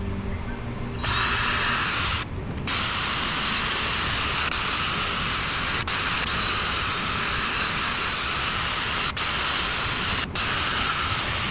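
High-speed power tool running with a steady high-pitched whine and hiss. It starts about a second in and cuts out briefly twice. It is most likely being used to clean the water pump mounting surface on a 5.7 HEMI.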